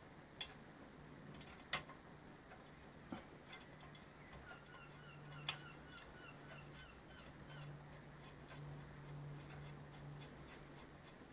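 Near silence with a few faint, sharp clicks of small metal parts being handled and fitted by hand on an engine crankcase, over a low steady hum. In the middle, a faint run of short, evenly spaced high chirps.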